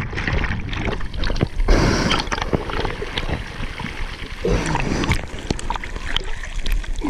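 Sea water splashing and gurgling close to the microphone, with many small irregular knocks and drips.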